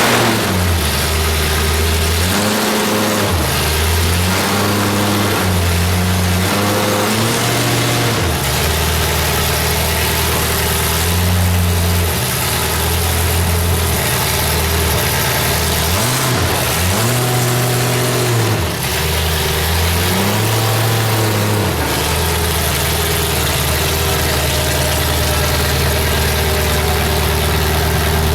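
Demolition derby car's engine being revved in repeated swells, its pitch rising and falling, in two bursts of blips, then settling into a steady idle for the last several seconds.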